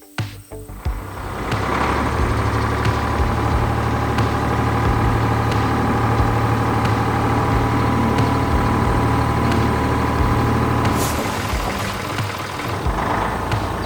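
A heavy vehicle engine running steadily with a deep low hum, starting up about a second in, with a brief hiss about three-quarters of the way through.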